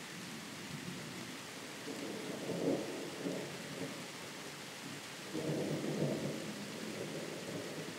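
Distant thunder rumbling in two low rolls, one about two seconds in and a longer one about five seconds in, over a steady hiss of rain.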